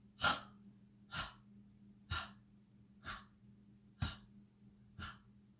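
Palms tapping the chest and lower back in a qigong lung-and-kidney tapping exercise, one short tap about every second.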